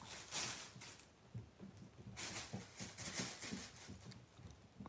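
Thin plastic bags crinkling and rustling as a kitten paws at and pounces on them, in two spells of crackling, the second starting about two seconds in.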